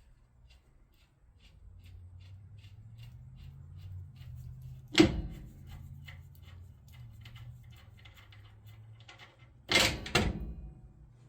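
Hands working on a truck's front spindle and brake parts: a run of light ticks, about four or five a second, with a sharp metallic knock about halfway and two more close together near the end.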